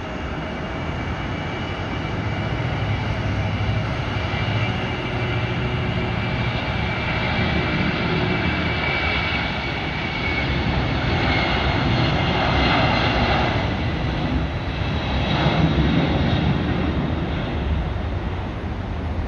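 Boeing 767 freighter's twin jet engines at takeoff power during its takeoff roll: a steady jet roar with a high whine on top, growing louder as the aircraft rolls past.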